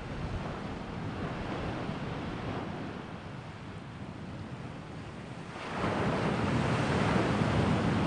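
Wind rushing over the microphone outdoors, a steady noisy roar that grows louder about six seconds in.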